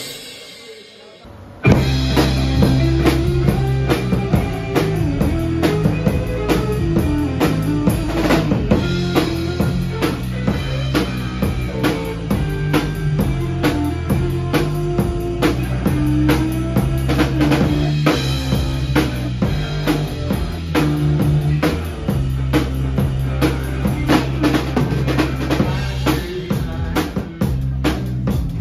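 A drum kit dies away in the first second and a half. Then rock band music begins and plays on: kick, snare and cymbals over steady low bass notes and guitar.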